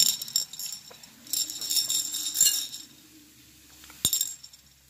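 Light metallic jingling and clinking in three short bouts: one at the start, a longer one from about a second in, and a brief one near the end.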